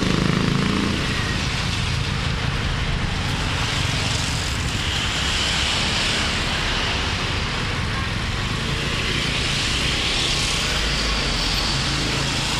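Hot oil sizzling and bubbling steadily in a large wok as fruit pieces deep-fry, over a low steady rumble.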